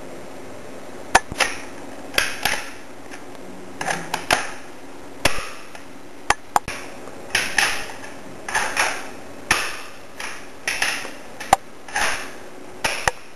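Winchester 1892 lever-action rifle's action being worked by hand: an irregular string of sharp metallic clicks and short clacks, about one or two a second, starting about a second in.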